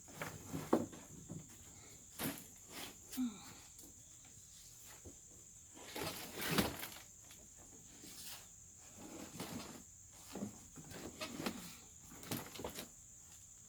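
Hands rummaging through loose garden soil and sweet potato vines while digging for tubers: irregular rustles, scrapes and soft knocks, the loudest about six and a half seconds in.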